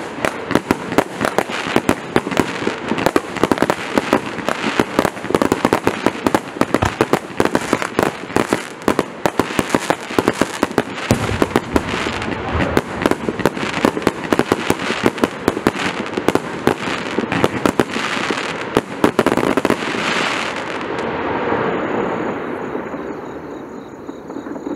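Prestigious Pyrotechnics Pyroclastic Storm compound firework firing a dense, rapid barrage of bangs and crackle. The bangs stop about twenty seconds in and the sound fades out as the display ends.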